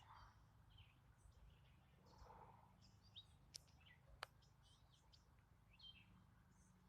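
Faint scattered bird chirps over a low steady background hum, with two sharp clicks a little past the midpoint.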